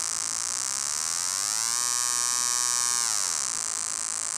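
Buzzy electronic tone from a homemade sonic screwdriver's frequency generator, swept by a sliding potentiometer: the pitch rises over about a second and a half, holds, then falls about three seconds in.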